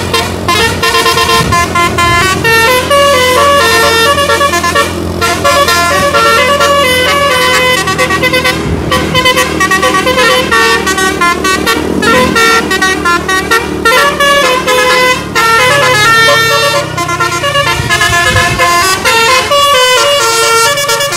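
A bus's multi-note 'telolet' musical horn playing a long, loud melody of stepping notes, several sounding together, over the bus engine's steady running.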